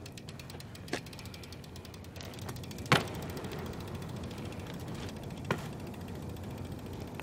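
BMX bike rolling on a concrete sidewalk, its tyres making a steady low rolling noise, with three sharp knocks from the bike hitting the pavement during manuals; the loudest comes about three seconds in.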